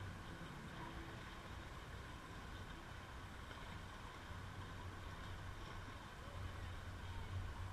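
Swimming-pool water washing and lapping at a camera held at the surface, a steady noisy wash with a low rumble. It gets a little louder near the end as a front-crawl swimmer splashes closer.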